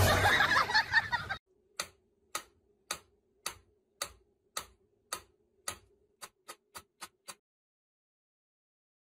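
Mechanical pyramid metronome ticking, sharp clicks a little under two a second, then quicker, about three a second, before it stops, with a faint steady hum under the ticks. Before the ticking starts there is a second or so of loud noisy sound.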